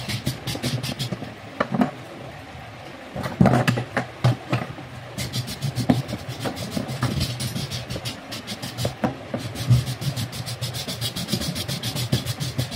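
A small hacksaw cutting through the plastic housing of an LED bulb in quick back-and-forth rasping strokes. The strokes ease off for about two seconds a second in, then resume.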